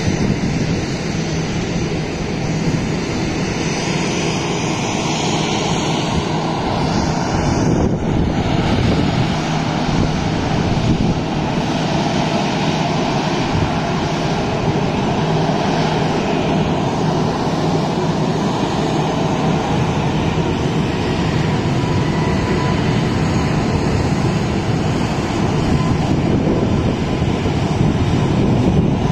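Airliner engines running loud and steady, with a high whine rising in pitch over the first several seconds.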